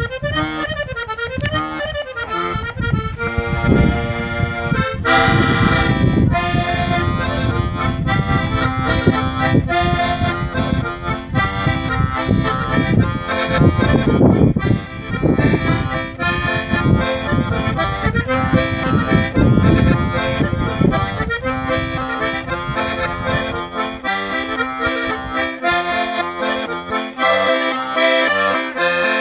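Diatonic button accordion (Sardinian organetto) playing a passu torrau, a Sardinian dance tune, as a continuous run of quick notes.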